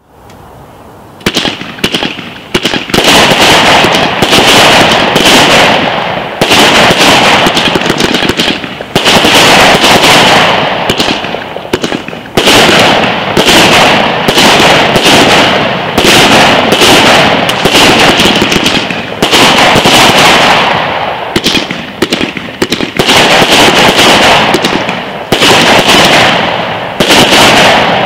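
Fab Fireworks Twisted Tails firework firing: after about a second of quieter lead-in, a dense, loud run of shots and crackling bursts comes in waves every few seconds.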